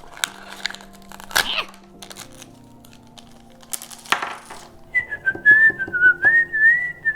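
Plastic packaging crinkling and tearing in a few short strokes, then a wavering whistle from about five seconds in, dipping and rising in pitch, louder than the crinkling.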